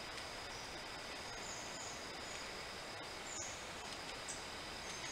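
Outdoor woodland ambience: a steady hiss with a thin, steady high tone running under it and a few short, high bird chirps scattered through.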